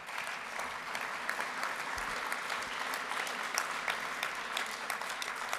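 Audience applauding with steady clapping.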